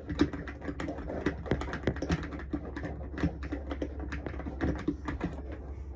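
Mechanical keyboard keys being pressed rapidly and unevenly, a continuous run of clacks as in game play.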